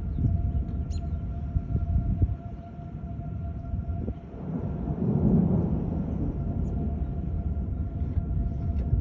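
Outdoor tornado warning siren sounding one steady tone, under heavy wind buffeting on the microphone that swells about halfway through.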